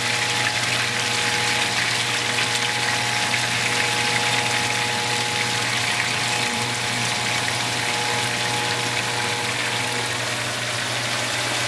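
Trout pieces sizzling steadily in hot oil in a frying pan, with a faint steady hum underneath.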